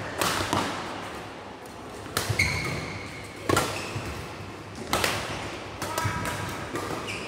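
Badminton rally: sharp racket-on-shuttlecock hits, about one to one and a half seconds apart, with short high squeaks from court shoes between them.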